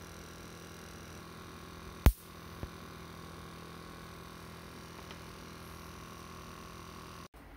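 A single loud, sharp snap followed by a much fainter click about half a second later, typical of a charged capacitor being discharged by shorting its leads together. A faint steady hum runs underneath.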